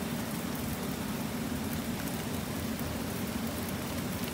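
Garden sprinkler spraying water in a steady hiss, with a low hum underneath.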